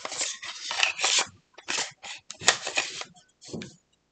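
Irregular scratching and rustling: a string of short rubbing sounds of uneven length.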